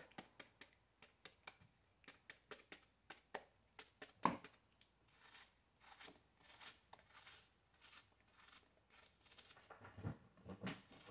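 Faint clicks and scrapes of a small kitchen knife cutting pieces off an apple over a bowl of chopped apple, with one louder knock about four seconds in.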